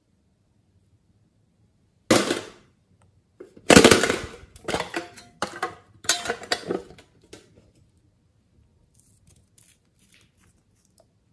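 Plastic makeup containers handled right at the microphone: a short burst of rattling and knocking about two seconds in, then a longer run of clattering and scraping for about four seconds. Near the end, faint clicks as the cap of a glass nail polish bottle is twisted open.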